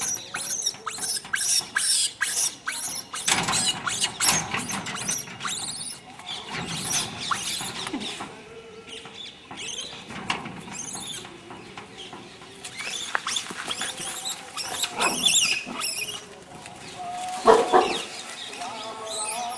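Animal calls: repeated high squeaks and chirps, with a fast run of sharp clicks in the first few seconds and a loud cry near the end.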